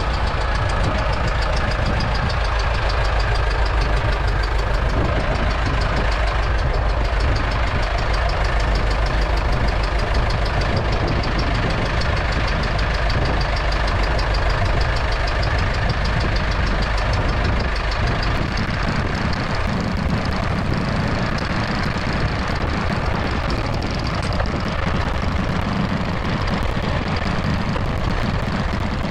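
David Brown 990 loader tractor's engine idling steadily.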